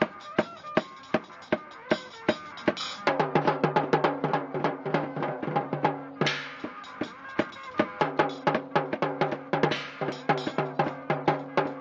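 Street music led by a drum beaten in a steady rhythm of about three strokes a second. About three seconds in, low held notes, likely the accompanying guitar, come in and the drumming grows busier.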